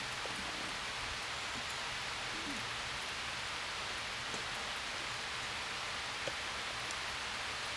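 Steady, even hiss of light rain falling on grass and leaves, with a faint short sound about six seconds in.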